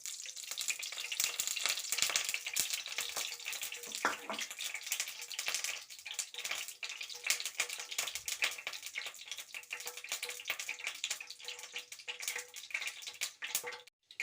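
Cooking oil heating in a pan, sizzling and crackling with many small pops as it comes up to temperature for tempering. It cuts off abruptly near the end.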